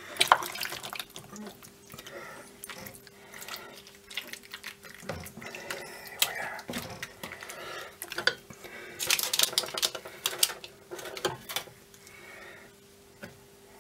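Metal spoon scraping and clinking as thick, creamy penne pasta in cheese sauce is scooped and squelched into place, in irregular bursts.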